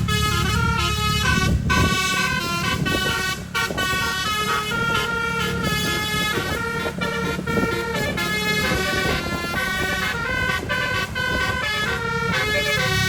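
A bus telolet horn, twelve roof-mounted air-horn trumpets (telolet basuri), plays a continuous quick melody of stepped, sustained notes over a low vehicle rumble.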